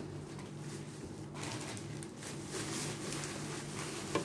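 Quiet room tone: a low steady hum with faint soft handling noises, and one short click near the end.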